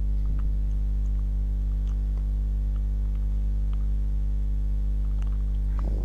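Steady electrical mains hum, a low buzz with many overtones, with a few faint clicks scattered through it.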